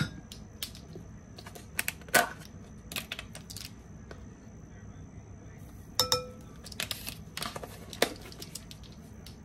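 Kitchen utensils and a spice container clicking and clinking as ground spice is measured into a glass mixing bowl with a teaspoon, with one ringing clink about six seconds in.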